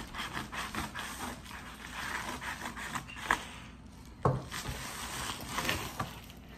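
Padded paper mailer envelope being opened and handled: dense crinkling and rustling of paper, with a few sharper snaps in the second half.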